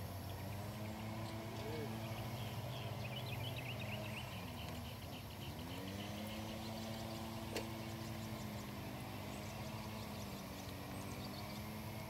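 A steady engine hum in several pitched layers, idling. Its pitch sags briefly about four to five seconds in and then recovers. Faint high chirps run over it, with a single sharp click about seven and a half seconds in.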